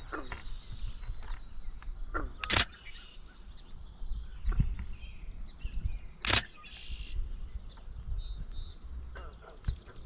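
DSLR camera shutter firing in two short bursts, about two and a half seconds and six seconds in, with small birds chirping in the background.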